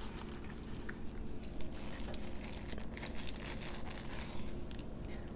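Paper wrapper of a sushi burrito crinkling as it is handled and picked up, a run of small, irregular crackles.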